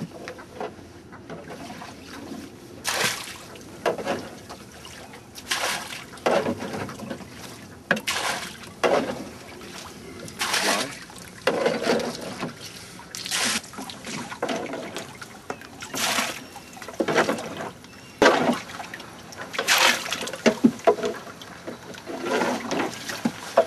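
Water splashing in repeated scoops and pours, one every second or two at uneven intervals, as a small dinghy is bailed out by hand.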